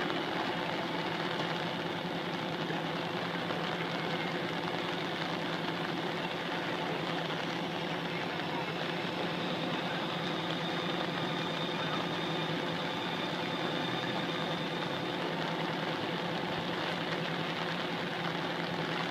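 Fire truck's diesel engine running steadily at the scene, with rain falling.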